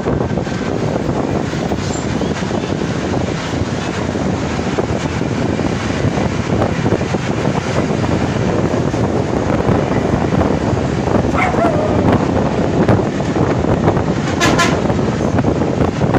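Steady noise of a moving bus heard from inside the cabin: engine, road and wind noise. A couple of brief sharper sounds come near the end.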